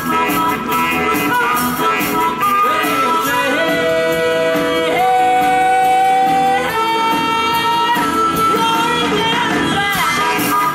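Live blues band playing with electric guitars, bass and drums; in the middle a lead line plays long held notes with bends.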